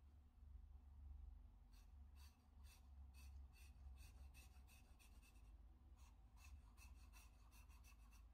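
Faint scratching of a Staedtler Noris graphite pencil on sketchbook paper, shading in a small circle with quick short strokes, a few a second, starting about two seconds in. A low rumble runs underneath.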